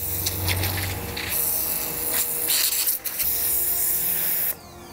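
Pressure washer jet hissing as it blasts a potted plant and the asphalt around it, with the machine's motor humming underneath; the spray stops about four and a half seconds in.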